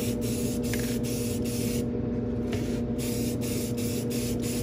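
Aerosol can of Rust-Oleum Painter's Touch 2X Ultra Cover clear matte coat spraying in a series of short hissing bursts, with a brief pause about two seconds in. A steady low hum sits underneath.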